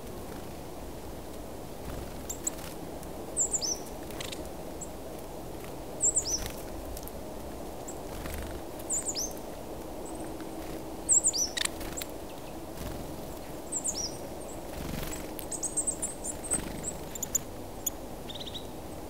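Small songbirds calling: short, high notes that slide downward, repeated every second or two, with a quick run of calls near the end. A steady low background noise runs underneath.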